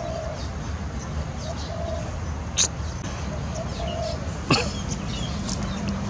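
Outdoor animal calls over a steady low rumble of distant traffic: two short, sharp high calls about two and a half and four and a half seconds in, with soft low cooing notes and scattered faint high chirps between them.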